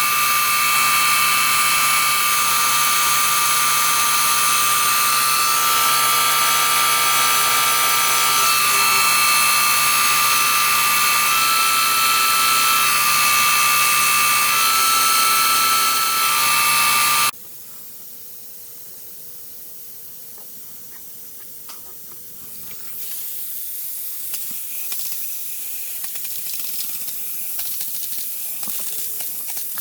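Electrostatic powder-coating equipment: a loud steady electric whine over a low hum that cuts off suddenly about 17 seconds in. From about 23 seconds a quieter hiss of powder being sprayed with air.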